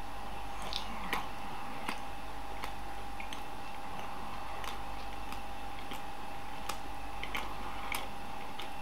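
A person chewing a bite of pan pizza with soft, uneven mouth clicks a little under once a second, over a faint steady hum.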